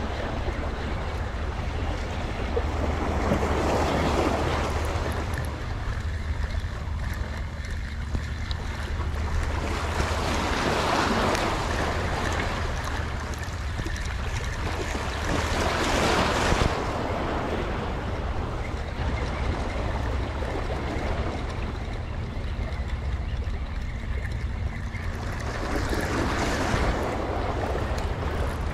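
Sea waves washing against shore rocks, swelling and falling back in surges every several seconds, over a steady low rumble of wind on the microphone.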